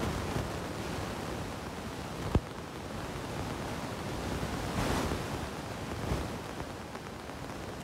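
Steady rushing background hiss, with a single sharp click about two and a half seconds in.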